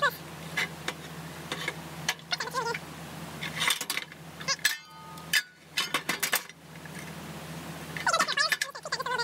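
Metal clinks and clanks as a sheet-steel frame piece and locking pliers are handled and shifted on a steel workbench, with a steady low hum underneath. A brief wavering vocal sound comes near the end.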